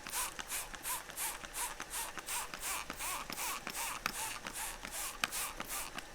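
Hand spray bottle of alum solution being pumped over damp fabric, a quick even series of hissing spritzes, about three a second.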